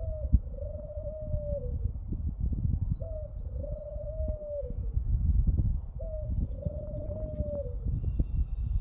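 A dove cooing: three long, smooth coos about three seconds apart, each dropping in pitch at the end. Wind rumbles on the microphone throughout, and a small bird gives a brief high trill about three seconds in.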